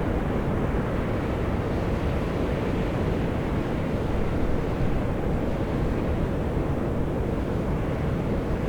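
Volcanic fumarole vents on Atosanupuri (Mt. Io) hissing as steam and gas blast out, a steady deep rushing roar that holds level without a break.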